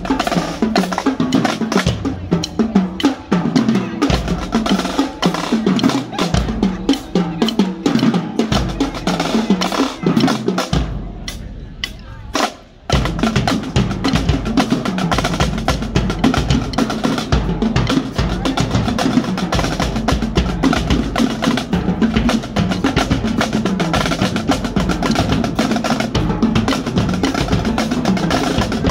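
A drumline playing a fast cadence on Pearl marching snare drums, with tenor drums and crash cymbals, full of rapid sticking and rolls. The playing drops away briefly about eleven seconds in, then starts up again.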